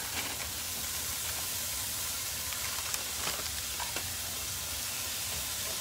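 Frozen cauliflower rice and vegetables sizzling steadily in a hot skillet on medium heat, with a few light ticks about halfway through.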